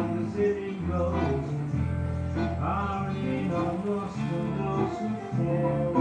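Background music: a song with guitar.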